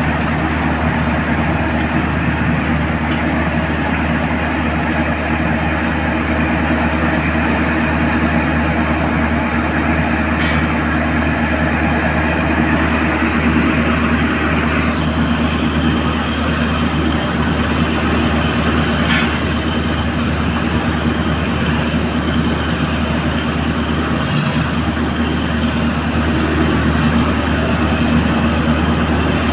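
A crane's engine running steadily with a deep, even hum, and a couple of faint short clicks.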